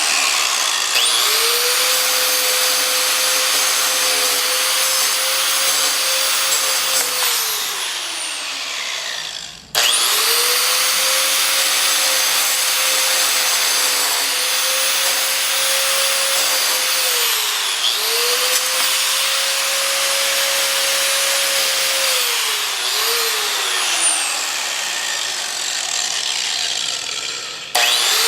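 Angle grinder grinding an iPhone 6: a loud motor whine with a harsh grinding hiss. The whine sags in pitch several times as the disc is pressed into the phone; the grinder winds down and cuts out about ten seconds in, restarts straight away, and winds down and restarts again near the end.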